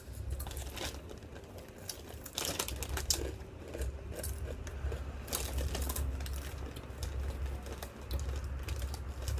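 Crunching of rolled spicy tortilla chips being bitten and chewed, in a run of irregular crisp cracks.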